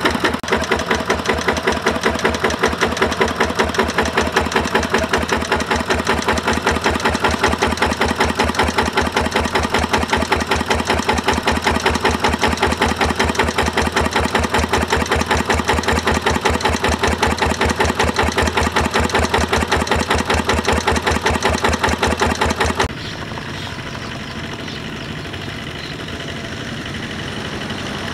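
Kubota RT140 power tiller's single-cylinder diesel engine running close up, with a steady, even beat of firing pulses. About 23 seconds in the sound drops suddenly to a quieter, more distant engine running.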